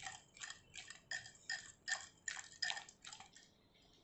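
Wire whisk beating thick batter in a glass bowl, its wires clicking against the glass in an even rhythm of about two to three strokes a second; the whisking stops a little past three seconds in.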